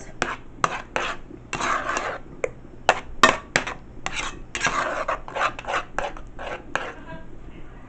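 Spoon scraping and knocking against a cooking pot in quick, irregular strokes.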